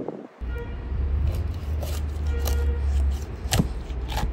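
Large knife working through a raw whole chicken on a wooden cutting board, with a sharp knock of the blade on the board about three and a half seconds in. A steady low rumble runs beneath it.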